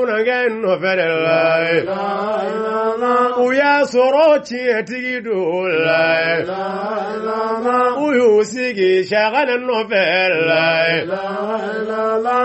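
Sufi devotional chanting of a qasida, sung without a break in drawn-out, wavering notes. Long held notes come about a second in, around six seconds in, and again around ten seconds in.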